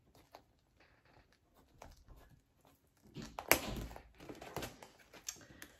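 Handling of a snap-fastened cash binder: quiet at first, then rustling and a sharp click about three and a half seconds in as its snap button is pressed shut, followed by a few smaller clicks and rustles.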